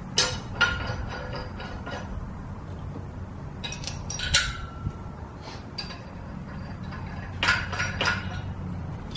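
Steel bolts and washers clinking against a steel yoke frame as they are fitted by hand: clusters of sharp metallic clinks, some with a short ring, near the start, around four seconds in, and again near the end.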